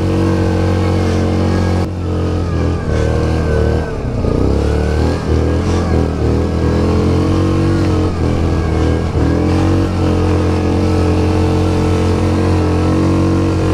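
Yamaha Grizzly 700 ATV's single-cylinder engine pulling hard up a steep climb in four-wheel drive, its pitch dipping and rising as the throttle and load change.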